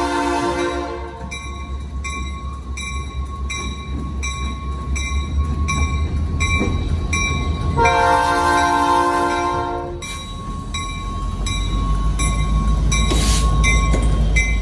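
Norfolk Southern six-axle diesel locomotive sounding its multi-tone air horn: a blast that ends about a second in and a second blast of about two seconds near the middle, with a third starting at the end. Under it the locomotive's diesel engine rumbles, louder as it comes close at the end, and a railroad crossing bell rings at an even pace of about two strikes a second.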